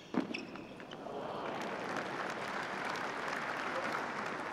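A tennis ball struck once by a racket, with a shoe squeak on the hard court, then from about a second in the stadium crowd applauds the end of the point.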